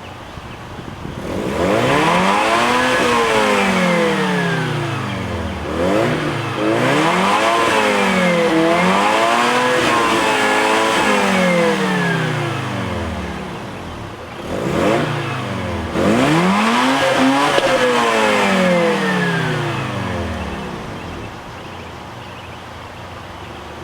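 Stock naturally aspirated Mazda RX-7 FC3S 13B two-rotor rotary engine revving up and down, its pitch rising and falling in several long sweeps. It settles to a quieter, steadier sound near the end.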